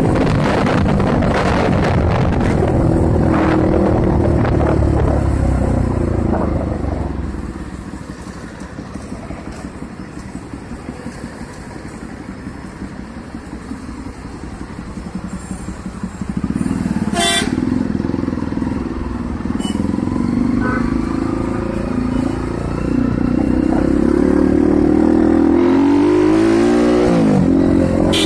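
Bajaj Pulsar 200NS single-cylinder engine and wind rush, heard from the rider's seat: running at speed, then quieter as the bike slows through stopped traffic, then revving and accelerating again. Near the end the engine pitch drops and rises again quickly.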